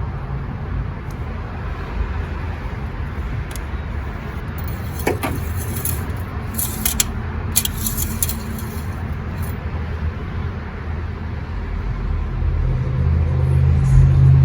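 Steady low vehicle-like rumble, with a few light sharp clicks about a third to halfway through as the oil dipstick is pulled and handled.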